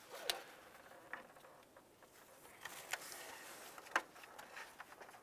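Plastic zip ties being threaded and handled around a wiring harness: a few faint, sharp clicks, the loudest about four seconds in, with light rustling between them.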